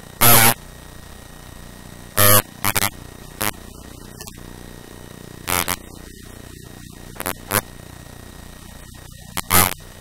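Short, loud, heavily distorted bursts of a voice, a few syllables at a time with pauses between, over a steady hiss and hum.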